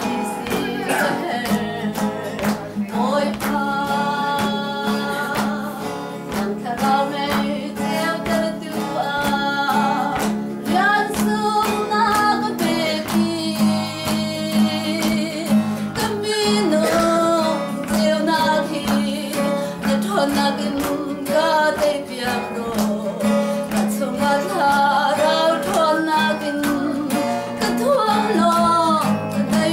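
A woman singing a song to a strummed acoustic guitar, the strums keeping a steady beat under her voice.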